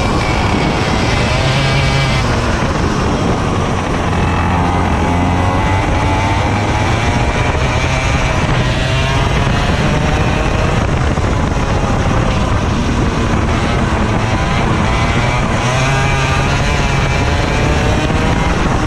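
Racing kart's engine at race pace, heard onboard, its pitch rising and falling again and again as the kart accelerates out of bends and slows into them.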